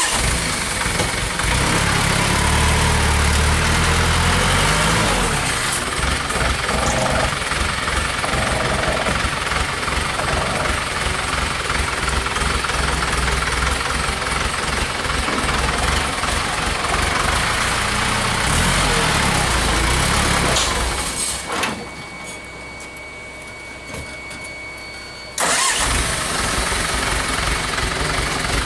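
Foton light dump truck's diesel engine running hard under load, its pitch rising and falling in the first few seconds, as the loaded truck works in soft mud where it has sunk in. The sound drops away for a few seconds near the end, then the engine comes back loud all at once.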